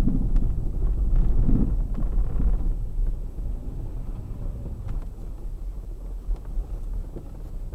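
Worn steering rack on a third-generation Kia Sportage knocking: dull knocks over a low rumble, heavier in the first two seconds or so and then easing.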